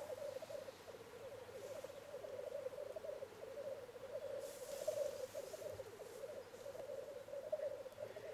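Male black grouse bubbling at the lek: a continuous low, rolling, warbling chorus. A brief faint hiss comes about halfway through.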